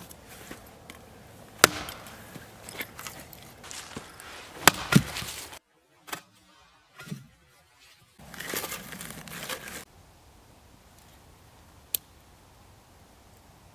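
Hatchet chopping and splitting dry firewood into kindling: a few sharp wooden strikes, two of them close together about five seconds in. Later a stretch of rustling and one sharp click near the end.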